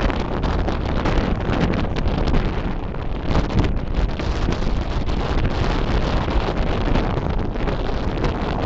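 Wind buffeting a microphone moving along a road on a bicycle: a steady, loud rushing noise, strongest in the low end.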